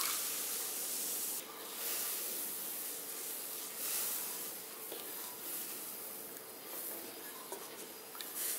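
Wooden spatula stirring and scraping through milk in a hot metal pan, a rubbing, hissing sound that swells with each stroke.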